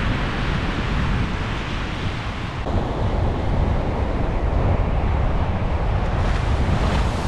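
Wind buffeting the microphone over the steady wash of ocean surf breaking on the beach, with a wave washing in near the end.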